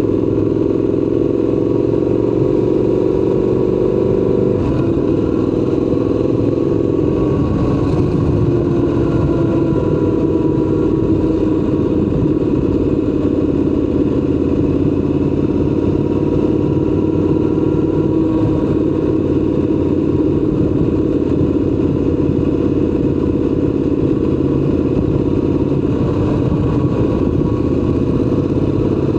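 Triumph Scrambler 1200 XC's parallel-twin engine running under way, holding fairly steady revs that rise and dip gently.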